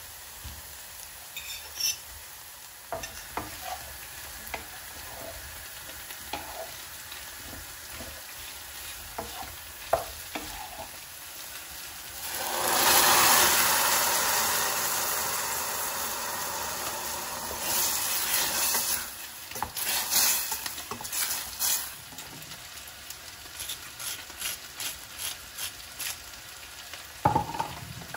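Food frying in a hot pan, with utensil clicks and stirring. About halfway through a sudden loud sizzle starts, as when food goes into the hot oil, and it slowly dies down, flaring briefly a few more times.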